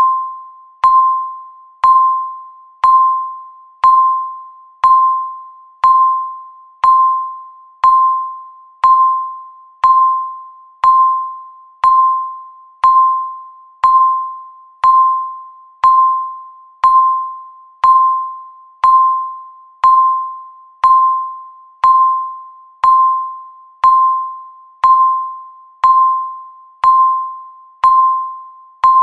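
Countdown timer beep sounding once every second: a single electronic tone that starts sharply and fades away before the next, repeating evenly.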